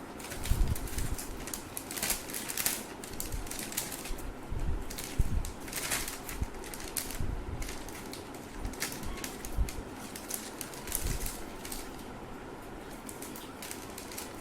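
Irregular short breathy bursts and rustling close to the microphone as a person tickles her nose, trying to bring on a sneeze. The two strongest bursts come about half a second and five seconds in.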